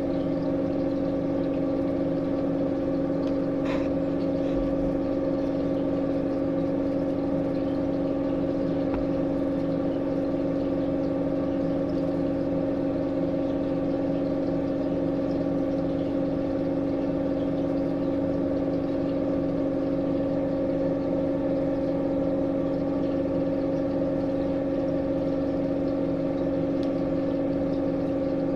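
A steady machine hum, holding one unchanging pitch, with a faint click about four seconds in.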